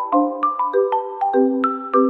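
Background music: a light melody of quickly struck, bell-like mallet notes, about four a second, over held chords.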